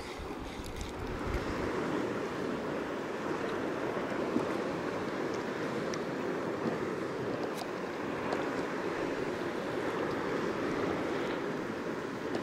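Steady wash of sea water around a kayak, mixed with wind on the microphone, with a few faint scattered ticks.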